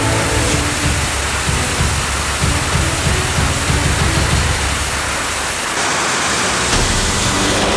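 Loud, steady rushing roar of an F/A-18 fighter jet's engines as the jet taxis across a carrier flight deck.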